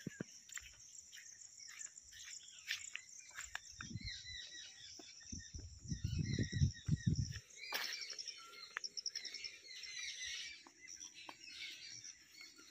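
Wild birds chirping and calling, with a fast trill about eight seconds in, over a steady high insect drone. A low rumble passes through the middle and is loudest about six to seven seconds in.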